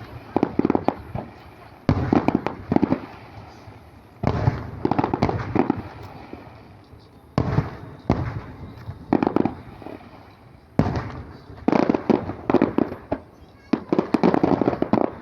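Aerial fireworks going off in volleys of rapid sharp bangs and crackles, a new volley roughly every two seconds.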